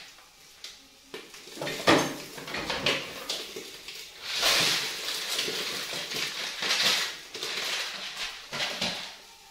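Clatter of a plastic bowl and kitchenware being handled on a kitchen counter, with a sharp knock about two seconds in and two short rushing noises near the middle.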